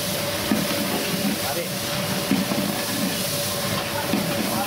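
Whole spices and green chillies sizzling in hot oil in a large metal pot, stirred with a long metal ladle that knocks and scrapes against the pot.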